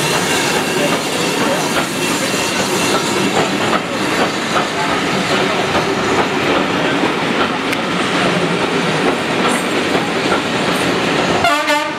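Passenger train coaches rolling past at close range, with a steady loud running noise of wheels on the rails.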